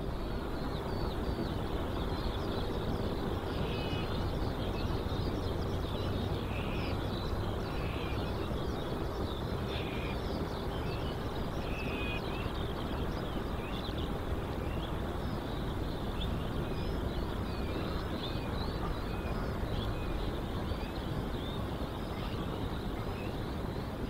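Steady low rumble of distant jet aircraft engines, with small birds chirping repeatedly high above it.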